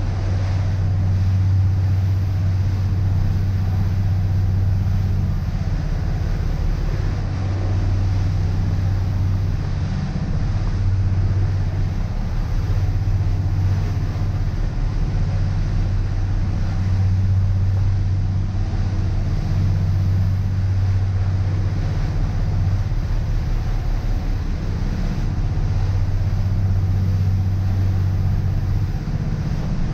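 Motor cruiser's engines droning steadily at cruising speed, a strong low hum that swells and eases slightly, with a rush of wind and water noise over it.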